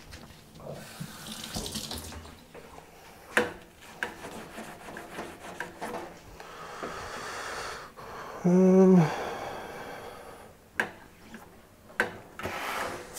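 Water running from a tap into a sink, with a few sharp knocks. About two-thirds of the way through comes a short, loud hum, the loudest sound.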